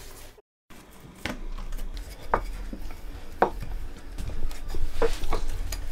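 A spoon scrapes briefly across a bamboo cutting board. After a short break, a wooden rolling pin rolls a sheet of dough out on the board: a steady rubbing sound, with sharp knocks of the pin on the wood about once a second.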